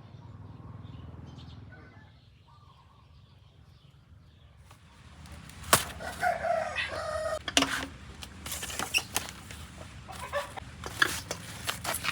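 A chicken clucking in short pitched calls from about halfway through, among sharp clicks and knocks.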